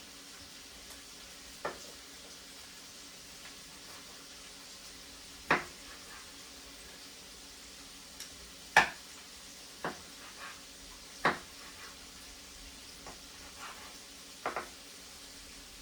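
Chopped sausage, garlic and vegetables sizzling softly in a frying pan, with a utensil knocking against the pan as it is stirred: several sharp clicks, a pair close together near the end.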